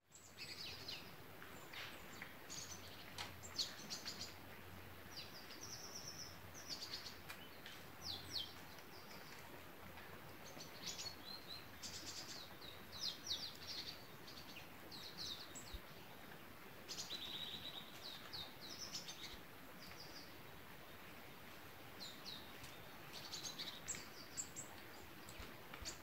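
Birds chirping in short, repeated high calls throughout, over a faint steady hiss of light rain.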